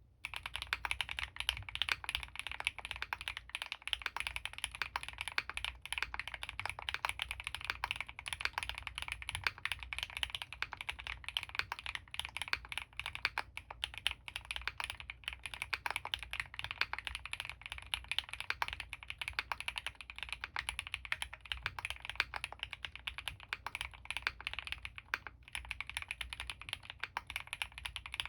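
Fast, continuous typing on a custom mechanical keyboard: an Owlab Mr.Suit with Krytox-lubed Gateron CJ linear switches on an Ultem (PEI) plate, with GMK keycaps. The keystrokes run as a dense stream of clicks.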